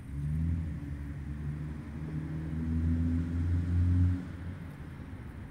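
Low engine hum of an unseen motor vehicle, growing louder for about four seconds and then falling away quickly.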